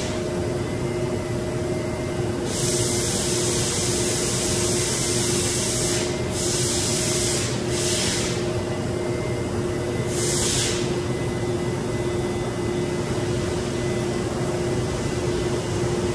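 Steady industrial machine hum with a constant drone, broken by bursts of hissing air. One long hiss runs from about two and a half to six seconds in, two short ones follow close behind, and a last short one comes about ten seconds in.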